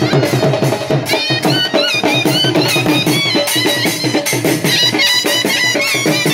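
A dhol drum plays a fast, dense rhythm under a shehnai carrying a bending, ornamented folk melody, as in Punjabi dhol-shehnai wedding music.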